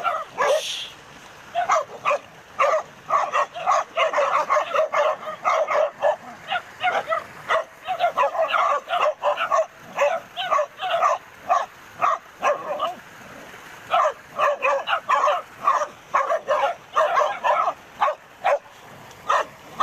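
Dog barking and yelping in quick, short calls, several a second, with a brief pause about thirteen seconds in.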